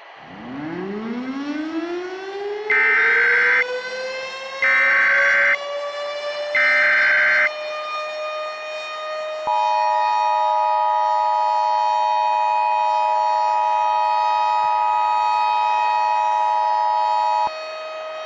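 Civil-defense siren winding up over about four seconds to a steady wail. Over it play the Emergency Alert System's SAME header, three short loud bursts of data tones about a second each, then the two-tone EAS attention signal, held for about eight seconds, marking the start of an emergency alert broadcast. The siren keeps sounding after the two-tone signal cuts off.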